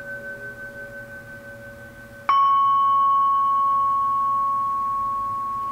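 Metal singing bowl struck with a wooden mallet. An earlier bowl tone is fading away, then a fresh strike about two seconds in sets a higher note ringing loudly, which slowly fades.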